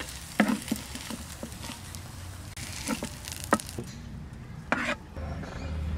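Spatula scraping and tapping against a cooking pan and bowl as fried pumpkin flowers and chillies are scooped out: a handful of short, sharp scrapes and knocks, a second or so apart.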